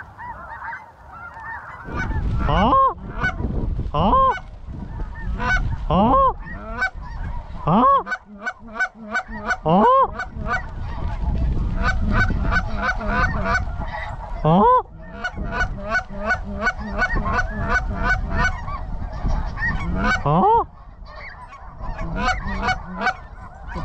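Snow geese calling: a constant chatter of short, high yelps, with louder drawn-out honks that swoop up and back down standing out every few seconds.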